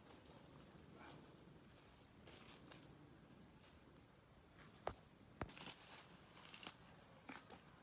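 Quiet outdoor ambience: faint scattered rustles and steps over a thin, steady high-pitched tone, with two sharp clicks about half a second apart a little past the middle.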